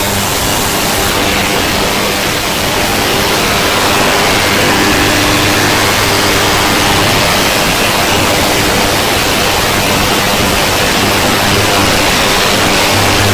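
Ultrasonic cleaning tank running: a loud, steady hiss with a low hum underneath, from cavitation in the cleaning liquid.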